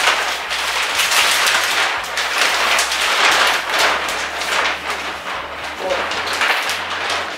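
Thin plastic Twister game mat crinkling and rustling loudly as it is unfolded and shaken out, a dense run of sharp crackles.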